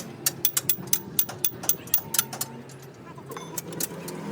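A quick series of sharp taps, about five or six a second, over a low steady hum. The taps stop about two and a half seconds in, with a few fainter ones later.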